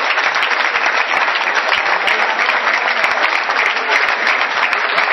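Spectators applauding steadily at the end of a rally.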